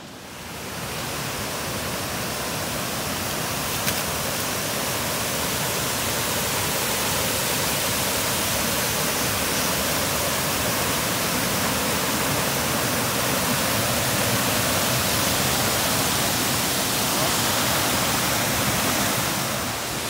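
Steady rushing of a tall waterfall, over 100 m high, heard close to its edge; it fades in over the first second and then holds level.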